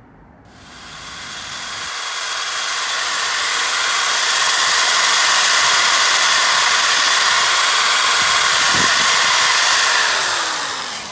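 Electric drill running a wire wheel against the rusty steel blade of an engine cooling fan, scrubbing off rust: a loud, steady grinding noise that builds over the first few seconds. It eases off near the end as the drill spins down with a falling whine.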